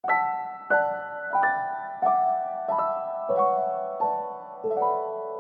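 Background piano music: a slow melody with a new note struck about every two-thirds of a second, each ringing on and fading.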